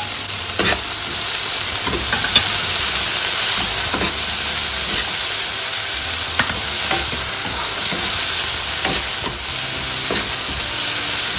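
Onions, capsicum and spring onion sizzling in olive oil in a pan, with tomatoes just added. A utensil stirring them gives scattered scrapes and taps over the steady frying hiss.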